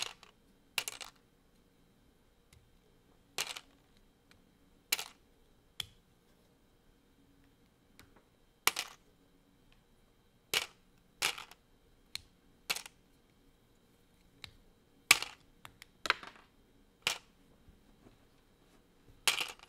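LEGO bricks being pulled apart by hand: sharp plastic clicks and snaps at irregular intervals, about fifteen in all, with quiet room tone between them.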